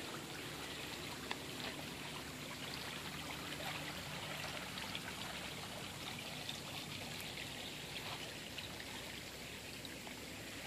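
Small creek running shallowly over flat rock: a steady trickle of water.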